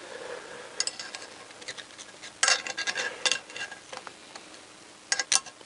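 Small metal clicks and scrapes from a hand pick tool working against the valve spring area of a motorcycle cylinder head while a valve stem seal is being fitted. The sounds come in short scattered clusters: about a second in, around the middle, and again near the end.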